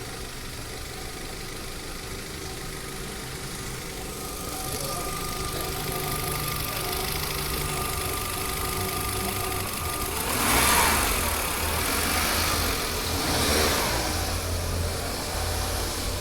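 Renault Duster's engine running steadily. It gets louder about four seconds in, with two brief swells around ten and thirteen seconds in.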